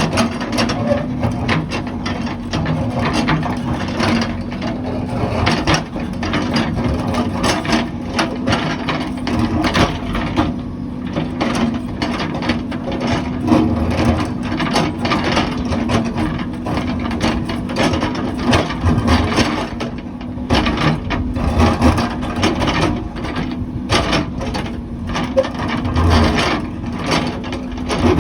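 Heavy construction machine working: a steady engine hum under dense, irregular clattering and knocking.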